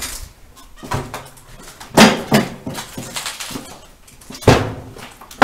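A few sharp knocks and bangs with a short echo after each. The loudest come about two seconds in and again about four and a half seconds in.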